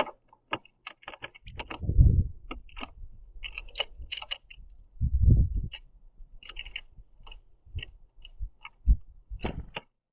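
Mourning doves and northern cardinals pecking at sunflower seeds on a wooden platform feeder: irregular sharp clicks and taps of beaks on seeds and wood, with a few dull thumps about 2, 5 and 9 seconds in. The sound stops just before the end.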